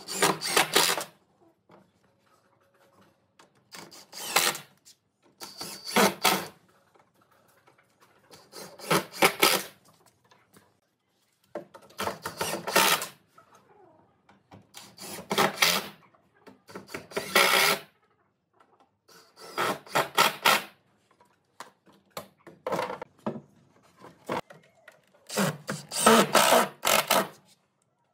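Cordless impact driver driving screws into pine boards in about ten short bursts, each a second or so long, with pauses between them.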